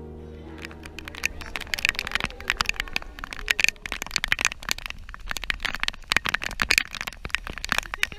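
Dense, irregular crackling clicks, many a second, over a low rumble: rain and wind striking a GoPro's housing and microphone.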